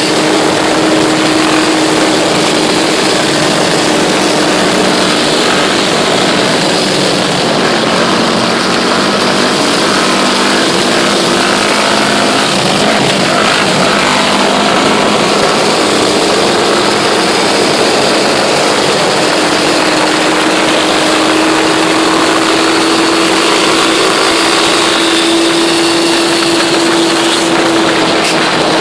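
ATV (quad bike) engine running steadily at cruising speed, its pitch holding nearly level with small rises and falls, over a constant rushing noise.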